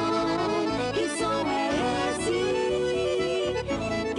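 Piano accordion (sanfona) playing a melody over a rhythmic bass accompaniment.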